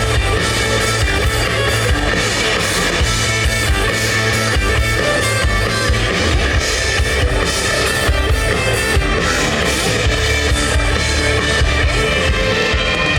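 Rock band playing live, an instrumental break with electric guitar and drum kit and no singing.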